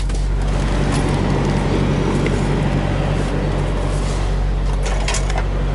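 Semi truck's diesel engine idling: a steady low hum, with a few light clicks about five seconds in.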